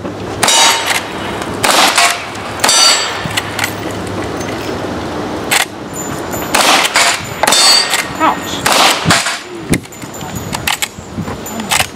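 Rifle shots at steel targets, about one a second, each followed by the clang and ring of the struck steel plates as they are hit and knocked down.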